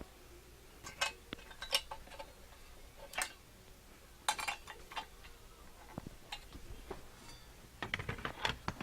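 Scattered sharp metallic clicks and clinks of a boxed-end wrench working a small bolt, a few seconds apart.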